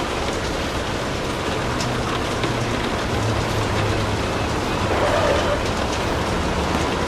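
Steady rain falling, an even rushing patter, with a low rumble swelling underneath for a few seconds early in the stretch.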